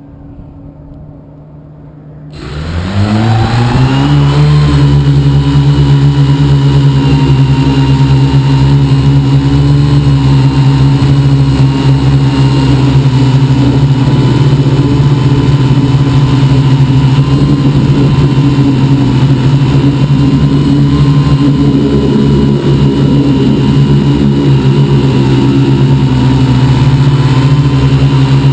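Quadcopter's brushless motors and propellers, heard from a camera on the frame: a faint low hum, then about two seconds in the motors spin up, rising in pitch, for takeoff, and settle into a steady loud drone as it flies.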